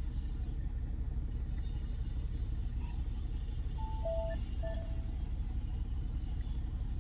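Steady low rumble inside a car's cabin, typical of the engine idling. A short electronic chime of a few beeps at two pitches sounds about four seconds in.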